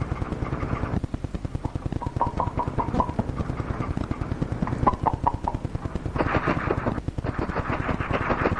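A machine clicking rapidly and evenly, with two short runs of about five beeps a couple of seconds apart. A burst of hiss joins from about six seconds in.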